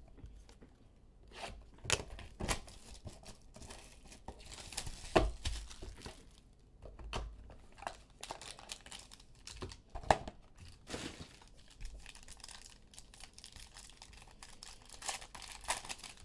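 Trading-card packaging being opened by hand: cardboard box and plastic wrappers tearing and crinkling in short, scattered rustles, with the sharpest tears about five and ten seconds in.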